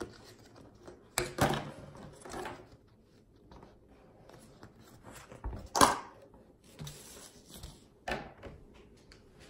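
Paper plates being handled: a handful of short rustles and knocks, the loudest about six seconds in, and a plate set down on the table about eight seconds in.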